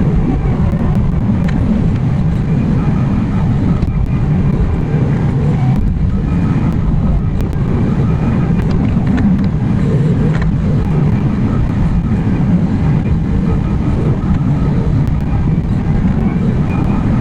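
Excavator's diesel engine running steadily, a constant low rumble with a few faint clicks over it.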